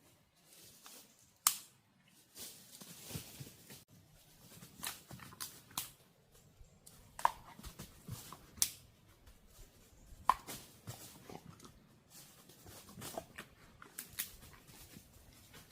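Irregular sharp clicks and knocks, a dozen or so spread unevenly, with soft rustling between them.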